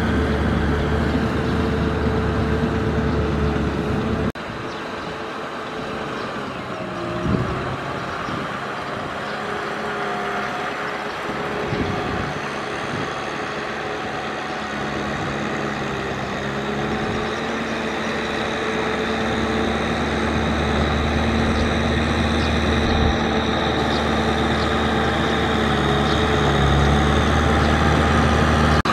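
Tractor diesel engines running steadily under load while pulling rotary tillers through flooded paddy mud. For about the first four seconds it is an older tractor; after a sudden cut it is a Kubota M6040SU, its engine note steady and slowly growing louder toward the end.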